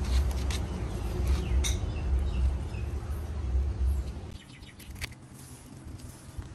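Wind buffeting the microphone as a low rumble that drops away about four seconds in, with a few light clicks and some faint bird chirps.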